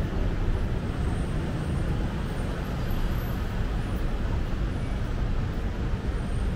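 Steady ambient background noise, mostly a low rumble, with no distinct events.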